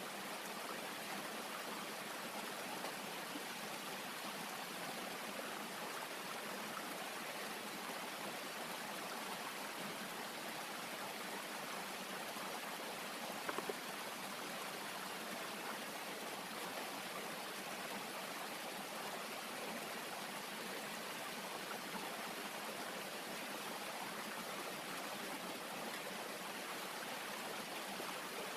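Steady rush of a flowing stream, with a brief cluster of faint clicks about halfway through.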